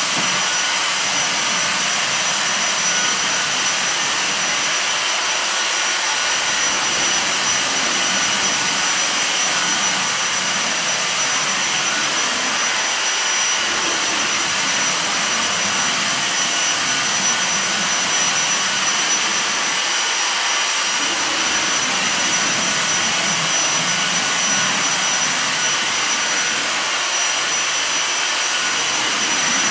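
Cordless vacuum cleaner running steadily, a high motor whine over an even rush of air.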